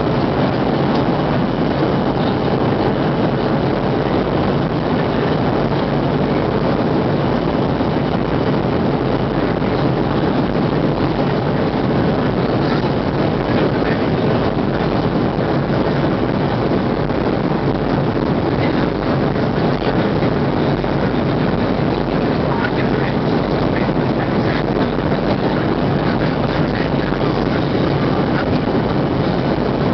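Steady cabin noise of a Boeing 737-700 airliner in flight: the hiss of air rushing past the fuselage mixed with the hum of its CFM56-7B turbofan engines, heard from a window seat over the wing.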